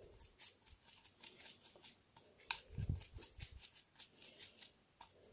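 Paintbrush loaded with white paint being tapped and flicked against a small paint pot to spatter droplets onto paper: a quick series of light ticks, about four a second, with a soft thump about three seconds in.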